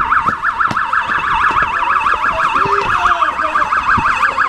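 Police car siren sounding in a fast warble, its pitch going up and down about eight or nine times a second without a break. A few faint voices and knocks sound under it.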